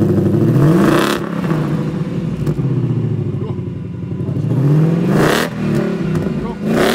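Ford Mustang Mach 1's 5.0-litre V8 revved up through its quad exhaust and let fall back to idle, three times: a rise peaking about a second in, another around five seconds, and a short blip near the end.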